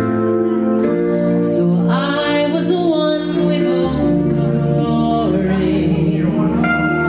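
Live song: a woman singing, with held, wavering notes, over sustained keyboard chords that change about a second in and again about four seconds in.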